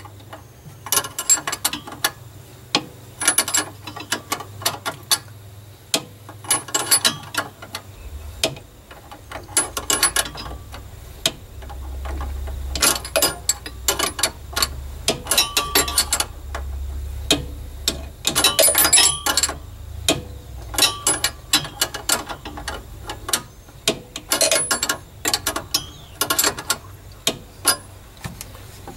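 Ratchet wrench clicking in short bursts, over and over, as bolts holding an engine's old fuel pump are worked loose.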